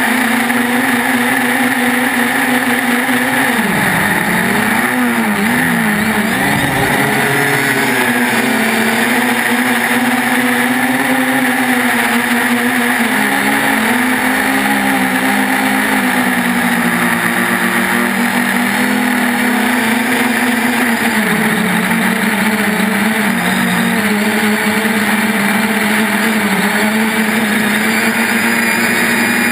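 3DR Iris+ quadcopter's electric motors and propellers humming steadily in flight. The pitch dips and wavers for a few seconds about four seconds in, and dips again around twenty seconds in, as the throttle changes.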